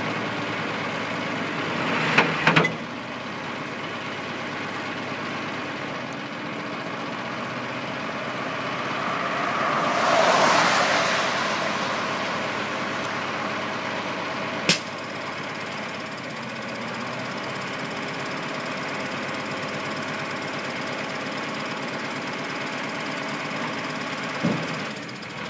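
Mack MS300T cab-over dump truck's diesel engine idling steadily while the raised dump body is lowered. A few sharp knocks and clunks come at about two seconds, fifteen seconds and near the end, and a hiss swells and fades about ten seconds in.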